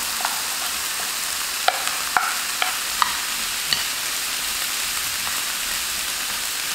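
Diced onions sizzling in oil in a frying pan, with a wooden spatula clacking and scraping against the pan a few times as diced potatoes are pushed in and stirred.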